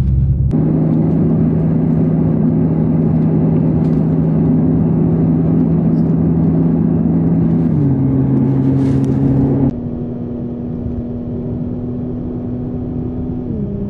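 Car engine running at a steady speed with road noise, heard from inside the car. The engine note steps down once about eight seconds in, and near ten seconds the sound changes suddenly to a quieter, steady drone.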